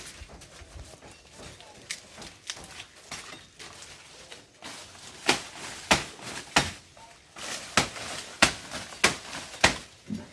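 Panga (machete) chopping sugarcane: a few faint knocks, then from about halfway through a run of about seven sharp, loud strikes, roughly one every half second to second.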